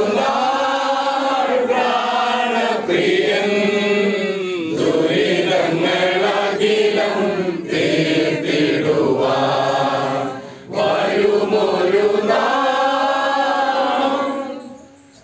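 A congregation of men and women singing a hymn together, in long held phrases with short breaks for breath. The singing fades out near the end.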